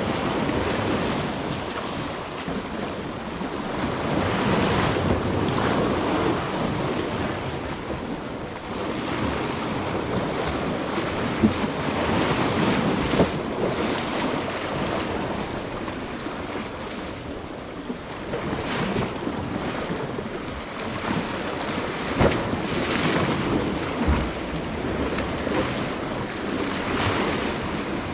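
Surf surging and washing against jetty rocks, swelling and easing every few seconds, with wind buffeting the microphone. A few short sharp knocks stand out above the wash.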